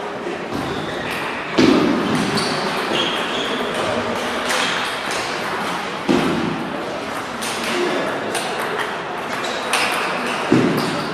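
Table tennis rally: the celluloid ball clicking off rubber bats and the table top again and again, mixed with the clicks of other rallies at neighbouring tables.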